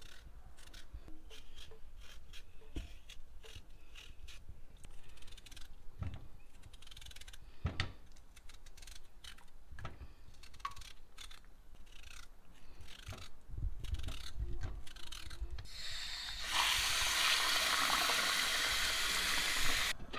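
Peeler and knife scraping and cutting the skin of a raw potato in short, irregular strokes. About three-quarters of the way through, a louder steady rush of running water starts and lasts for the last few seconds.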